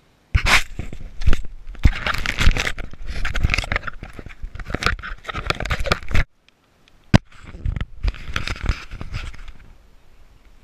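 Crackling, scraping noise right on the microphone of a handheld action camera being handled, in two stretches. The first cuts off suddenly about six seconds in, a single sharp click follows, and then a weaker stretch fades near the end.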